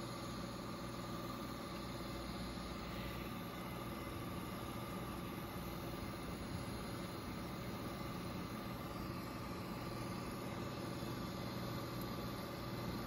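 1969 Rheem Califone 3080T reel-to-reel tape recorder running in playback over a blank stretch of tape, giving a steady hiss and hum through its speaker along with its motor running.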